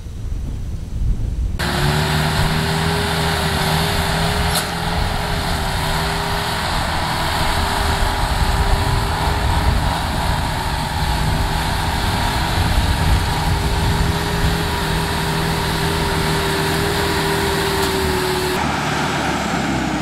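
Engine of a homemade tracked rice harvester converted into a rice transporter, running steadily at constant speed. It cuts in suddenly about a second and a half in after a quieter start, and its sound changes shortly before the end.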